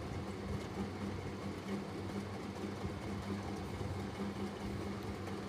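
Gulab jamun dough balls deep-frying in hot oil: a steady sizzle with faint crackles, over a steady low hum.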